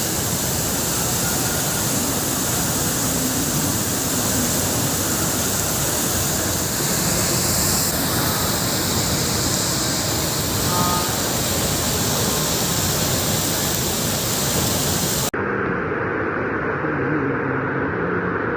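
Heavy rain pouring down in a steady, loud hiss. About fifteen seconds in it cuts off abruptly, giving way to a duller, lower rush with the high hiss gone.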